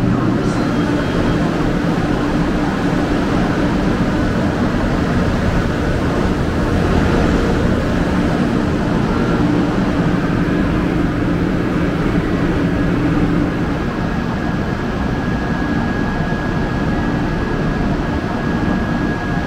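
Steady, loud hum and rumble of Shinkansen bullet trains standing at a station platform. A faint high whine joins about twelve seconds in.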